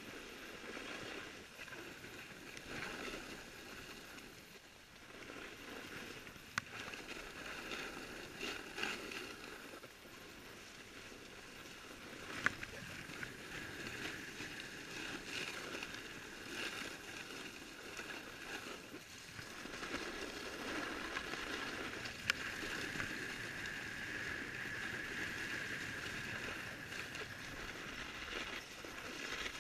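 Snowboard sliding and scraping over packed snow: a continuous rushing scrape that rises and falls in level, with a few sharp clicks.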